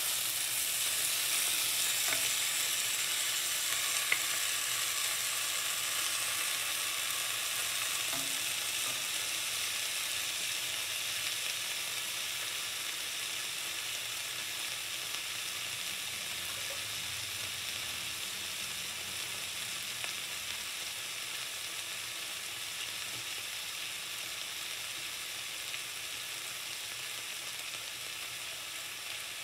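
Chopped tomatoes, zucchini, onion and carrot frying in olive oil in an enamelled pan: a steady sizzle that slowly grows quieter. A wooden spatula stirs the vegetables in the first few seconds.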